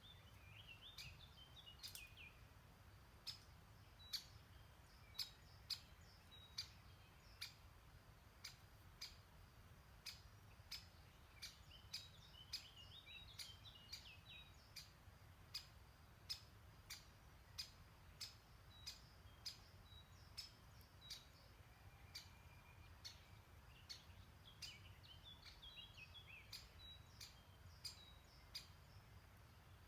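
A songbird singing a short jumbled warble three times, over sharp irregular clicks about one or two a second and a faint low rumble.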